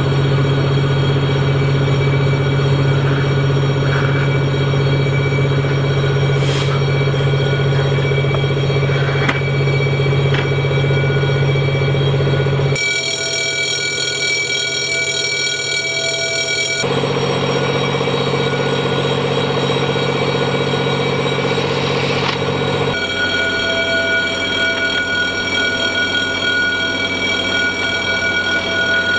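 Steady machine-like running noise with several held tones, without a break. The mix of tones changes abruptly three times.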